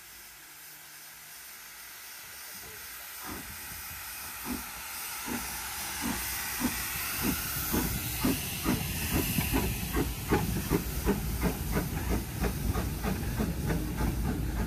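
Small saddle-tank steam locomotive getting away with a passenger train: a steady hiss of steam, then exhaust chuffs starting about three seconds in and quickening from about one a second to three or four a second as it gathers speed, growing louder as it passes.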